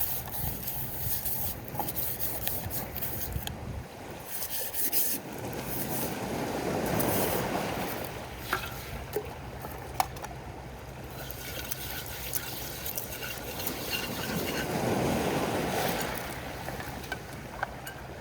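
Sea waves washing in, two swells rising and falling, over a steady low rumble of wind, with a few small clicks.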